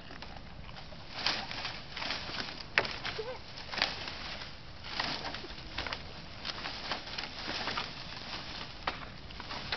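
Goats browsing in a pile of cut bamboo: leafy canes rustling and crackling in quick, irregular bursts as the goats pull and strip them, with a sharp snap about three seconds in.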